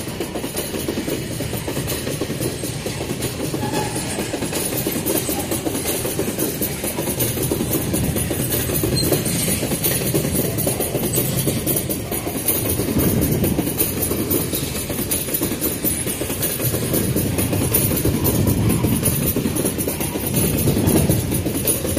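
Empty steel ore wagons of a freight train rolling past close by: a steady rumble of wheels on the rails with metallic clatter, swelling slightly at times.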